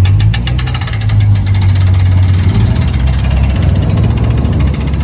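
An engine idling steadily, with a deep hum and a fast, even ticking.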